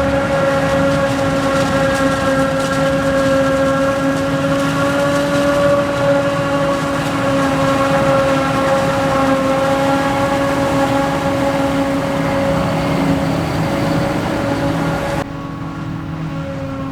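Machinery running with a steady, high pitched whine over an engine drone. The sound changes abruptly about fifteen seconds in, turning duller and a little quieter.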